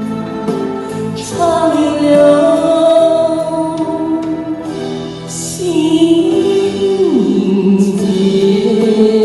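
A singer holding long, drawn-out closing notes over a karaoke backing track, the voice gliding between pitches about two-thirds of the way in.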